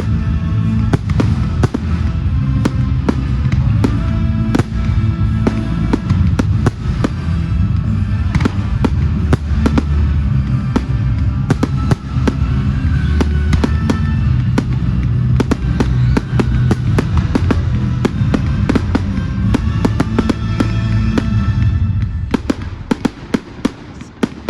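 Fireworks display: a rapid, dense run of bangs and crackles over loud music with a heavy bass. About two seconds before the end the music drops away, leaving the crackling and popping on its own.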